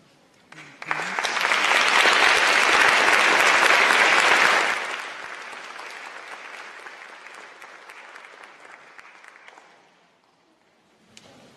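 Audience applause that breaks out about a second in, is loud for about four seconds, then falls off and dies away over the next few seconds.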